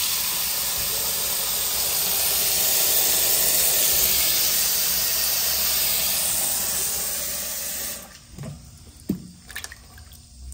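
Kitchen tap running steadily into a pot of water with leafy greens in it, a constant rush of water. It shuts off about eight seconds in, leaving small splashes and rustles as hands wash the leaves in the water.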